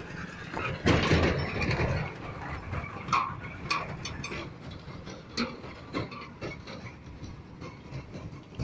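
Steel shuttering for a concrete median crash barrier being worked on by hand: scattered short metal clinks and knocks. About a second in there is a louder burst of noise lasting about a second.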